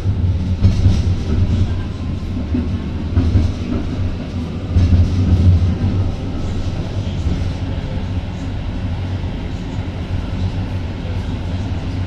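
Interior running noise of a Konstal 805Na tram in motion: a steady low hum and rumble from the motors and wheels, with occasional faint knocks from the wheels on the track. The rumble swells briefly about a second in and again around five seconds.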